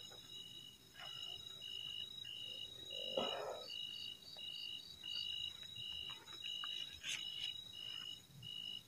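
Night insects calling: one pulses a short high chirp about twice a second over a steady high-pitched trill. About three seconds in there is a brief knock.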